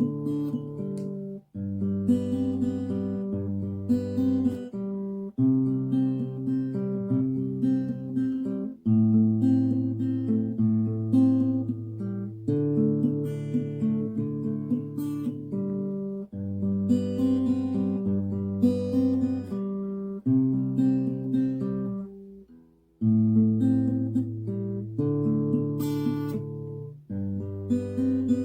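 Acoustic guitar being played, a run of chords changing every second or two, with a brief stop about 22 seconds in.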